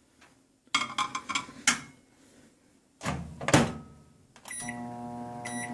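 A microwave oven being set going: clicks and short keypad beeps about a second in, then a loud thud like the door shutting. About four and a half seconds in, the oven starts with a steady electrical hum, and two short beeps sound over it.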